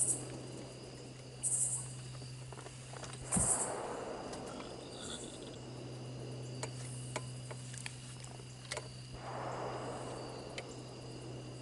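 Insects, crickets among them, trilling steadily at dusk in a few high, even tones, over a low steady hum, with scattered sharp clicks and a few brief rustles.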